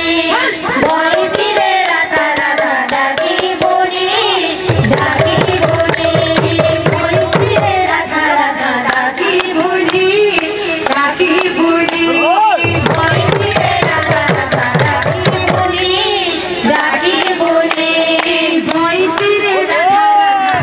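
Kirtan devotional music: a woman singing a wavering melody over several two-headed barrel drums beating a dense rhythm.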